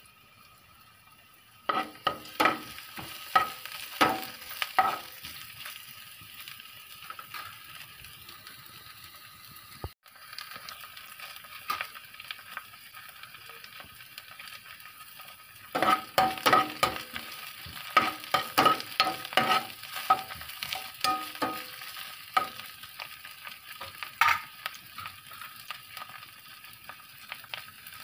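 Sliced onions and green chillies sizzling in oil in a non-stick frying pan, a steady hiss broken by two runs of sharp clicks and scrapes from the food being stirred and moved in the pan, a short run early and a longer one about halfway through.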